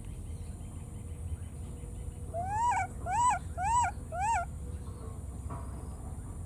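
Baby macaque crying: four high, rising-then-falling calls in quick succession about halfway through, over a low steady rumble.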